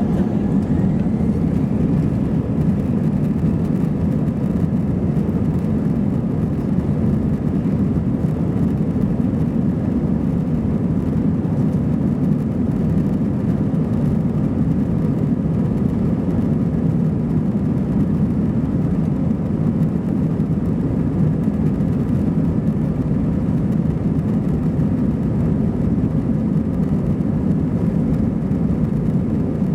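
Airbus A320-214 cabin noise heard from a rear seat: a steady low rumble of the CFM56 jet engines and airflow, unchanging throughout.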